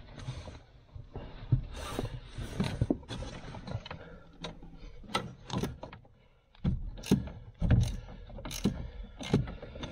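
Hand ratchet clicking in short, irregular runs, with metal clinks of the socket and wrench, as the nuts holding the brake master cylinder to the firewall are turned under the dash.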